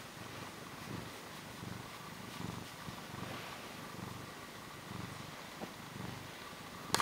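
Domestic cat purring steadily while being stroked, the low rumble swelling and fading with each breath, about once every three quarters of a second. A sharp click right at the very end.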